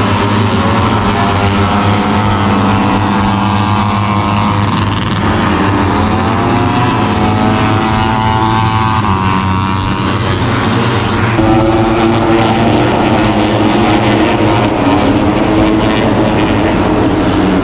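Racing motorcycles at high revs passing one after another on a circuit, each engine note rising and falling in pitch as a bike goes by, over a steady low rumble.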